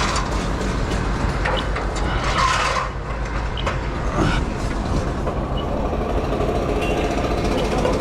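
Fire engine's motor running steadily, with a brief hiss about two and a half seconds in.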